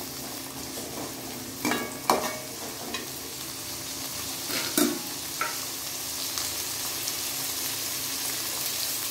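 Chopped shallots and garlic sizzling in hot oil in an aluminium kadai, being sautéed. A steel ladle scrapes and knocks against the pan a few times in the first half, then only the steady sizzle goes on.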